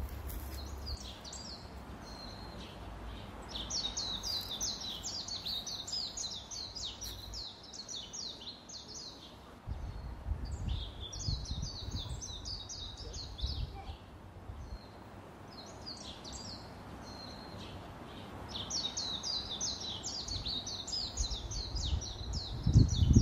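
A songbird singing three long songs, each a fast run of repeated high, down-slurred notes. A low rumble sits underneath at times.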